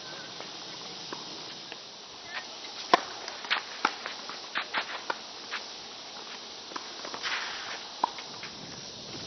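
Tennis rally: sharp pops of racquets striking the ball, the loudest about three seconds in, with shoes scuffing on the court over a steady hiss.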